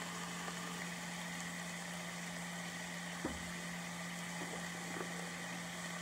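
Diced squash, zucchini and onions sizzling in butter in a stainless steel pan, an even frying hiss over a steady low hum, with a couple of faint ticks near the middle.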